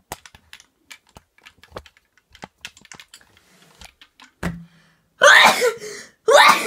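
Scattered small clicks and taps, then a thump about four and a half seconds in, followed by two loud, short vocal bursts from a person about a second apart.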